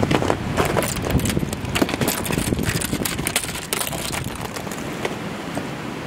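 Ice crackling and crunching in many irregular sharp clicks, over wind rumbling on the microphone.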